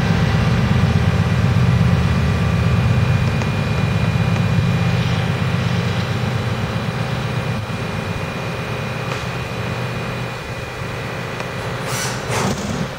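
Chiron FZ-8 CNC vertical machining center running its program with a 1/4 inch end mill: a steady low drone with a thin high whine, easing slightly about two-thirds of the way in. A few short rushing bursts come near the end.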